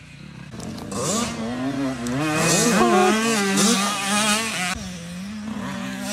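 Motocross dirt bike engines revving as riders accelerate and work the throttle, the pitch rising about a second in and wavering up and down at its loudest through the middle. Near five seconds the sound drops off suddenly and a steadier engine runs on.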